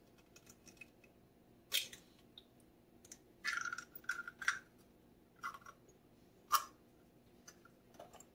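Faint crackles and clicks of an eggshell being broken open by hand over a mixing bowl, with a small cluster of snaps midway and one sharper click later on.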